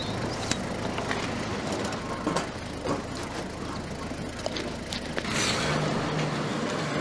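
School bus idling, with scattered clicks and knocks from its door and fittings. A short hiss comes about five seconds in, after which the engine hum steadies.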